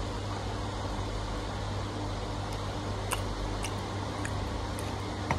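Electric desk fan running with a steady hum, with a few faint clicks.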